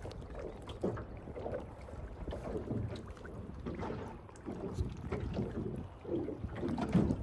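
Wind buffeting the microphone over a low rumble, with irregular splashes and knocks of water and net against a small boat's hull as a trap net is handled over the side.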